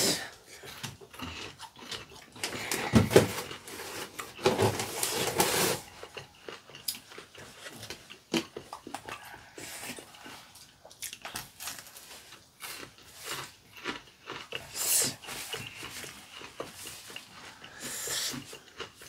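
Close-miked eating sounds: biting and chewing breaded fried pork cutlet, with mouth noises, many small clicks and a few louder, longer stretches.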